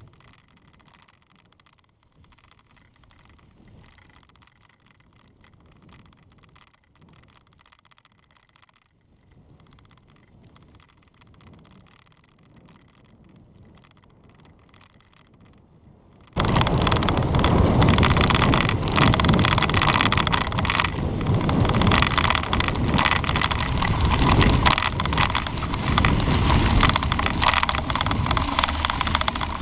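Bicycle riding on a gravel road: for about the first half only faint, muffled road noise, then a little past halfway it turns abruptly loud, with wind buffeting the microphone and the crunch and rattle of the tyres and bike over the gravel.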